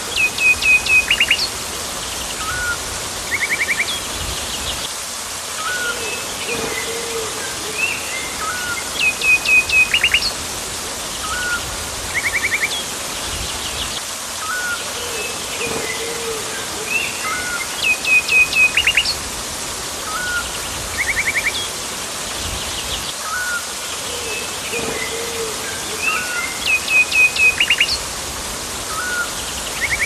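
Tropical rainforest ambience: several birds calling over a steady rush of water. A loud run of quick, high chirping notes comes back about every nine seconds, with a lower call now and then.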